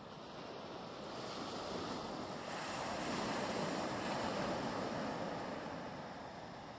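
Sea waves washing against a rocky shoreline: a surge of surf that swells to a peak about halfway through and then dies away.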